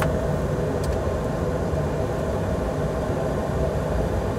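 Steady cockpit noise of a light business jet climbing just after takeoff, with engines at takeoff power: an even rush with a low hum underneath. A faint click comes about a second in.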